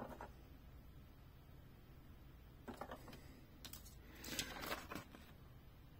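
Faint handling noises of hands on a plastic toy truck and a sticker sheet: a few light clicks a little under three seconds in, then a soft rustle about four seconds in, otherwise near silence with room tone.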